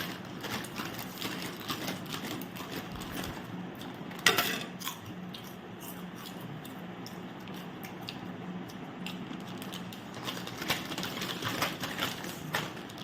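Crinkling of plastic Kurkure snack packets and crunching of the snacks, as irregular crackles with one sharp, louder crackle about four seconds in and a busier stretch near the end, over a steady low hum.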